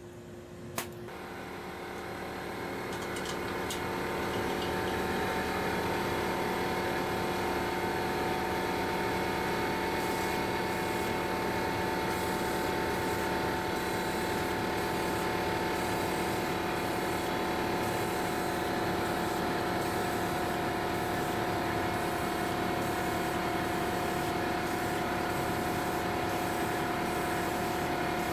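Wood lathe switched on with a click, its motor spinning up over a few seconds and then running steadily with a steady hum as it turns a large bowl.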